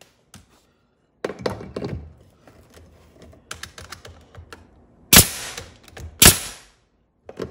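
A nail gun fires twice, about a second apart, driving nails into a pine window-sill board; each sharp shot trails off in a short hiss. Before that come clunks and light taps of tools being handled on the wood.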